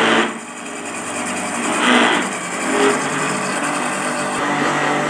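Electric blender motor running at speed, beating raw eggs in its jar until frothy. The sound dips briefly just after the start, then builds back with louder swells about two and three seconds in.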